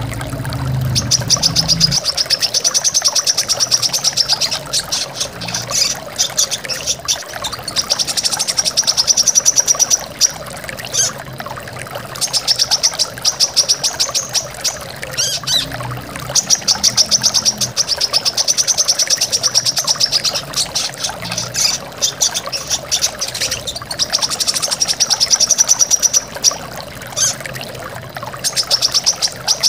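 Brown-throated sunbird (kolibri kelapa) singing rapid, chattering trills of high notes, each run about two seconds long and repeated after short breaks, over the steady rush of a waterfall.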